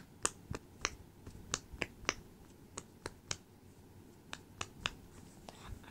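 Silicone pop-it fidget toy, its bubbles pressed in by fingers one after another: a string of sharp little pops, about three a second, sparser in the second half.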